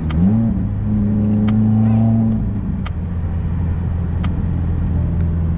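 Subaru WRX's turbocharged flat-four running through an open J-pipe, heard inside the cabin: the engine note climbs just after the start, holds a steady drone for about two seconds, then drops back to a lower steady note. A few light ticks sound through it.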